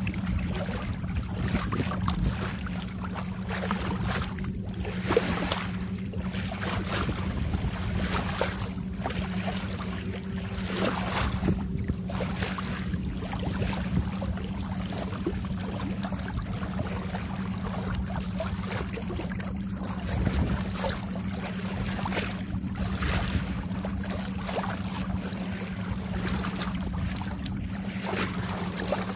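Bow wave rushing and splashing along the hull of a boat under way, in an even wash with irregular splashes. A steady low hum runs underneath.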